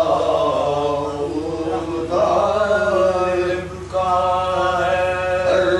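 A man chanting an Urdu salaam (devotional elegiac poem) in a slow melodic recitation, holding long drawn-out notes with a short break about four seconds in.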